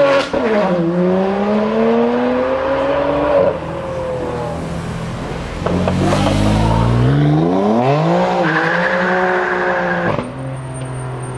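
BMW performance car engines revving hard and accelerating, the note climbing in pitch, dropping sharply at a gear change just after the start, then climbing again. Another car revs up, with a high tyre squeal about eight seconds in. Near the end an engine settles to a steady lower note.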